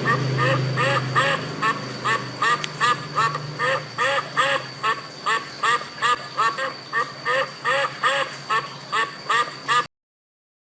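Ducks quacking in a rapid, even run of short calls, about two or three a second, that cuts off suddenly near the end.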